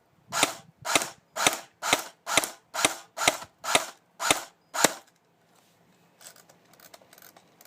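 CYMA CM032A M14/M21-style airsoft electric rifle, fitted with a Thunder B shell suppressor, fired on semi-auto: about ten sharp pops at roughly two per second, stopping about five seconds in. A few faint handling clicks follow.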